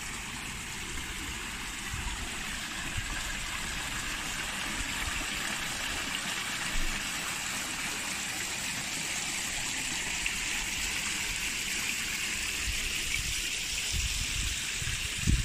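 Water pouring and splashing down the tiers of a garden fountain, a steady rush of falling water. There are a few low thumps, the loudest near the end.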